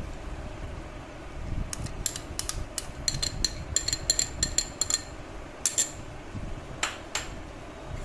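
A metal spoon clinking and scraping against glass bowls as a thick white ingredient is scraped out of one bowl into another. There is a quick run of bright, ringing clinks from about two seconds in to about five, then a few more near the end.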